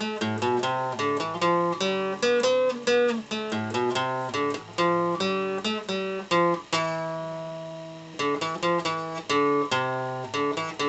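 Acoustic guitar played by picking single notes and chords at a steady pace. About seven seconds in, one chord is left to ring for a second or so before the picking starts again.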